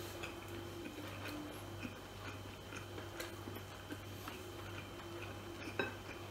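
A man eating with his hands: soft chewing and small scattered clicks and ticks of mouth and fingers, with a slightly sharper click near the end, over a low steady hum.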